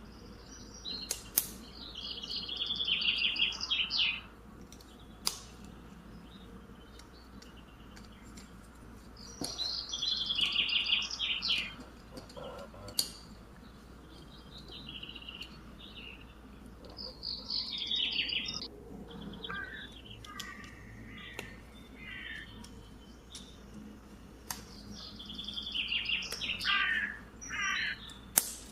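A bird singing in short, high, trilling phrases, four of them about eight seconds apart, with a few sharp clicks in between.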